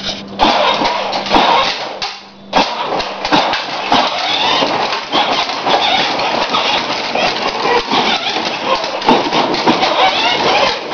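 Battery-powered ride-on toy truck driving on a concrete floor: its electric motor and hard plastic wheels make a loud, rough rumble with many small clicks. The noise drops out briefly about two seconds in, then starts again.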